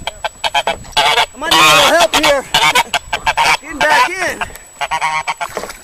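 Goose honking in a rapid series of short, harsh calls, loudest and most crowded around two seconds in. The honking of a goose aggressively defending its territory.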